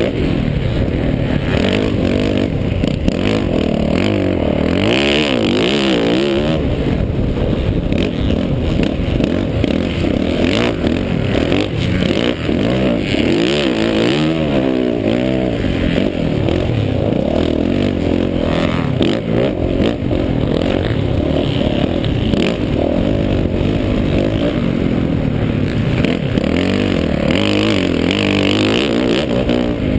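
Yamaha 450 four-stroke single-cylinder motocross bike engine being ridden hard, revving up and down again and again as the throttle is opened and closed, with wind rushing over the helmet-mounted microphone.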